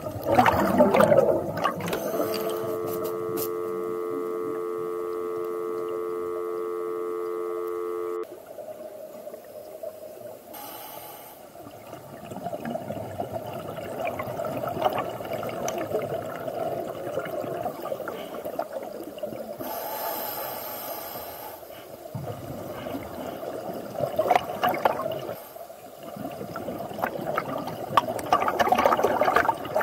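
Steady telephone dial tone, a two-note hum held for about six seconds, starting about two seconds in and cutting off suddenly. Around it, a scuba regulator's breathing and exhaust bubbles rush and gurgle underwater, with louder bursts of bubbles at the start and near the end.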